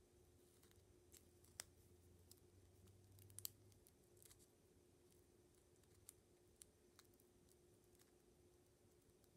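Very faint handling of paper washi tape: a few soft crisp clicks and crinkles as fingers peel and turn the die-cut ginkgo-leaf tape, over a faint steady hum.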